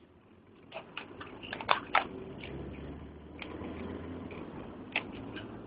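Low rumble of a moving car heard from inside the cabin, growing louder about a second in, with a scatter of sharp clicks and taps, several close together early and a few more near the end.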